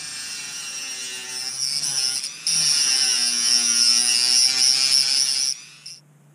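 Handheld rotary tool with a small cutoff wheel spinning at high speed, cutting a notch in a small metal part held in a vise. The high whine dips and recovers in pitch under load, gets suddenly louder about two and a half seconds in, and cuts off about a second before the end.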